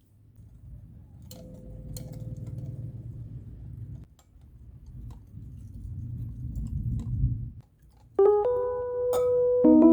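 A low rumbling noise swells twice, growing louder each time, then stops; about eight seconds in, electric piano music starts.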